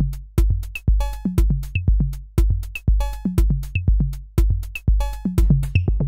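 Drum-machine beat fed through Arturia Pigments 5's audio input and processed by a synth preset's filters and envelopes. It starts suddenly as a steady beat of deep kicks about two a second, with sharp clicks and short pitched tones ringing on some of the hits.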